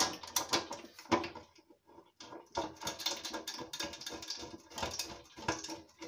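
Handling noise: irregular clicks, taps and light scuffs as a hand presses on and shifts a BSA Bantam D7's loosely fitted fuel tank over its wiring and cables.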